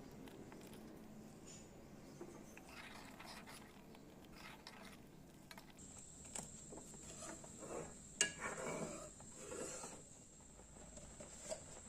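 A spoon stirring roti pieces in milk in a cooking pot, with faint scraping and soft clinks against the pot and one sharper clink about eight seconds in.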